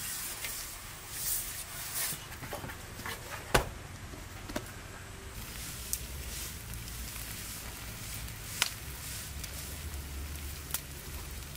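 A hand rubbing oil over an aluminium tray with soft squishing and scraping in the first couple of seconds. Then scattered sharp pops and crackles from a wood fire over a low rumble.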